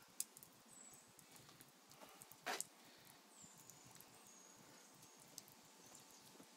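Near silence: faint outdoor room tone with a few faint high chirps and clicks, and one brief rustle about two and a half seconds in.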